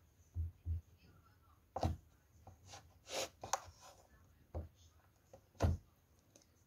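Large chef's knife slicing through a block of cheese on a wooden cutting board, the blade knocking dully against the board at irregular intervals, with soft scraping between the cuts; the loudest knock comes near the end.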